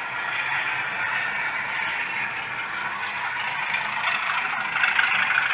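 Model railway train running steadily along the layout track: the motor and wheels on the rails make a steady, fairly high-pitched rush with a couple of faint clicks.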